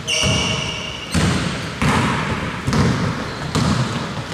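Basketball being dribbled on the court, a bounce roughly every second, with a short high squeak right at the start.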